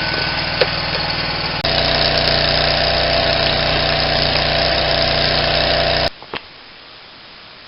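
Gas-engine-driven welder running steadily. About a second and a half in it jumps to a louder, higher-pitched running with more hiss, and about six seconds in the sound cuts off abruptly.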